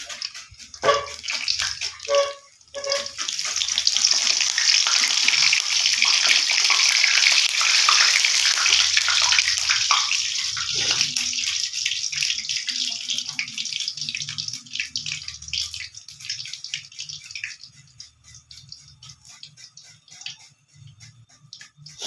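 A few light clinks, then a loud sizzling hiss from a hot karahi starts suddenly about three seconds in and slowly dies away over the next dozen seconds.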